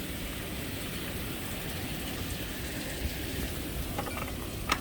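Steady rush of storm wind and rain, with a few faint clicks near the end.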